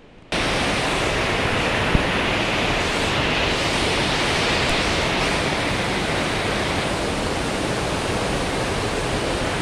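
Steady, loud rushing of water flowing through a water-treatment plant's filter beds, cutting in abruptly just after the start.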